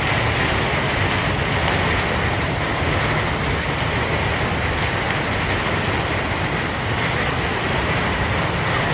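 Steady, loud, dense rushing street noise from a passing procession, with no distinct voices, music or beats standing out.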